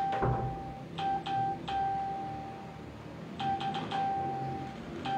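An electronic beep at one steady pitch, switching on and off in a run of short and long beeps with a click at the start of each, over a low hum.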